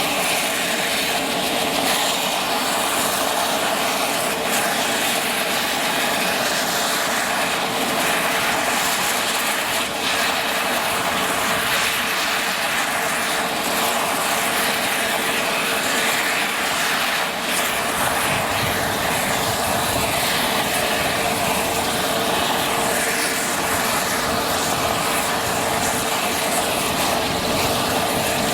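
Mil Mi-28 attack helicopter running close by: a steady turbine whine over the rush of the rotor blades, with a deeper rumble joining about two-thirds of the way through.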